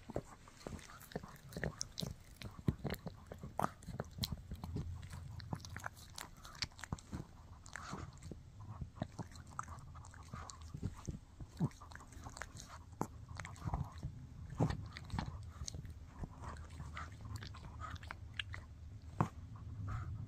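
Shih Tzu chewing on a bully stick: irregular crunching and clicking bites of its teeth on the dried chew, continuing throughout.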